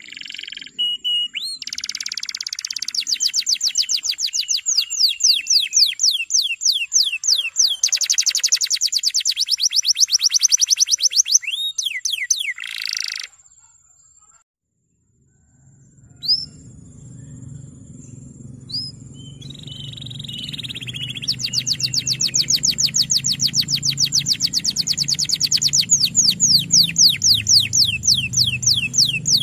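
Male domestic canary singing long rolling trills of rapid, evenly repeated high notes, breaking off briefly in the middle before starting again. A low hum runs under the song after the break.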